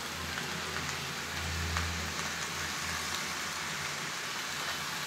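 Steady sizzle of ridge gourd pieces and soaked Bengal gram (chana) dal cooking in oil in a pan. A low rumble swells briefly about a second and a half in.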